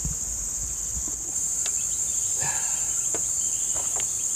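A steady, high-pitched chorus of insects droning without a break, with a few light clicks and taps over it.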